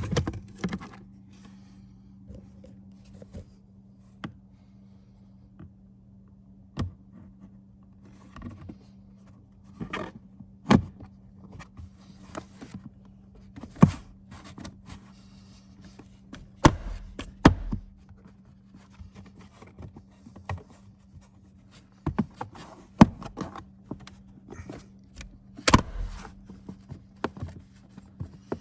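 Irregular clicks, clinks, knocks and scrapes of hand tools and metal parts being handled while the car is reassembled, a few of them sharper and louder, over a steady low hum.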